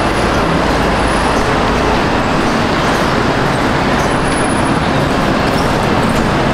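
Steady city street traffic noise from passing road vehicles, with a low rumble that fades about two seconds in.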